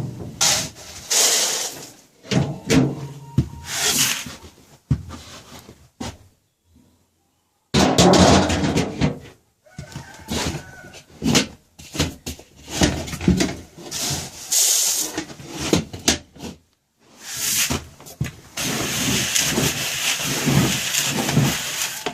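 Chickens clucking in a coop, mixed with irregular bursts of handling and movement noise. It all drops out for about a second and a half around six seconds in, and turns into a denser, steadier rustle near the end.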